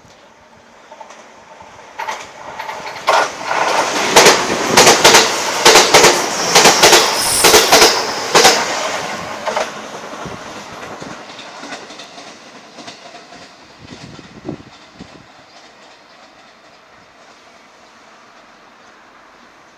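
Electric passenger train running through the station at speed without stopping: its rumble builds, peaks in a quick run of wheel clacks over the rail joints as the cars go by, then fades away as it recedes.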